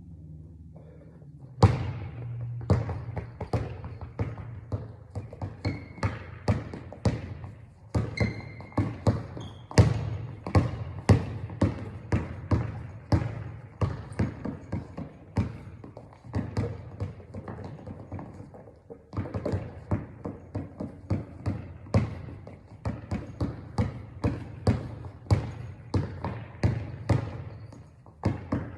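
A basketball being dribbled on a hard court floor, bouncing about two to three times a second, with a short pause about two-thirds of the way through.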